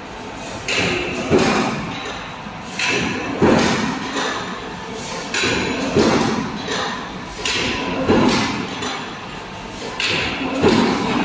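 Steel angle post roll-forming machine running, with a heavy thump about every two seconds, five in all. Each thump is led by a brief, higher-pitched metallic sound about half a second before it.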